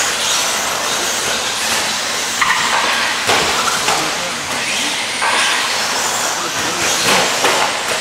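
RC stadium trucks racing on an indoor dirt track: a steady hiss of electric motors and tyres on the dirt, rising and falling as the trucks speed up and slow down.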